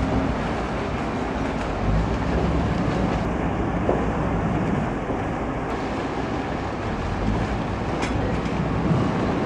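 Motorboat engines running with a steady low rumble over a constant hiss, with no real change in level.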